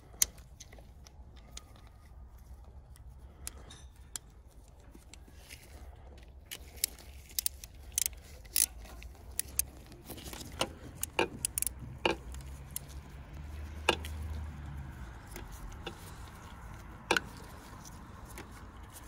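Scattered sharp metallic clicks and clinks of hand tools and a small metal plug as a transmission oil plug is fitted and threaded in by hand, over a faint low hum.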